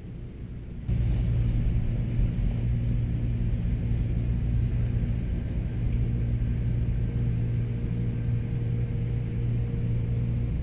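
A steady low hum starts suddenly about a second in and holds level, with faint high ticks repeating about twice a second over it.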